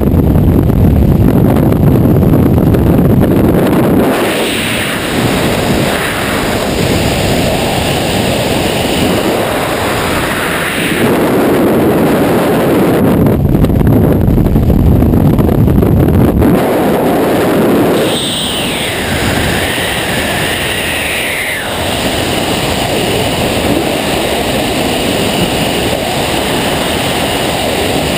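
Freefall wind rushing over a helmet camera's microphone: a loud, steady rush that swells twice, early and around the middle, and eases between as the skydiver's position in the airflow changes.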